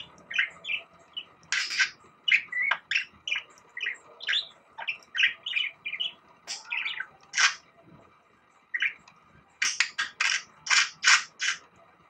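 A pet budgerigar chattering: many short, quick chirps and warbling notes, pausing briefly about eight seconds in, then a run of about seven loud chirps near the end.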